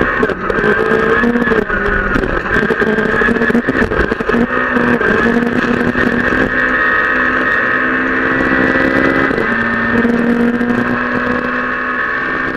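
Peugeot 208 R2 rally car's 1.6-litre four-cylinder engine held at high revs under hard acceleration, heard from inside the cabin, with a drop in pitch at an upshift from third to fourth about three-quarters of the way through. Gravel ticks and knocks against the underbody throughout.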